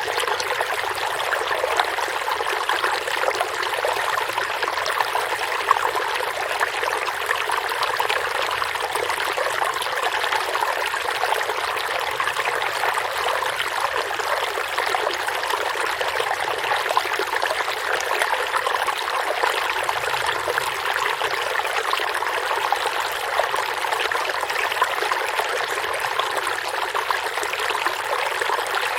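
A forest stream flowing steadily over rocks, a continuous even rush and trickle of running water.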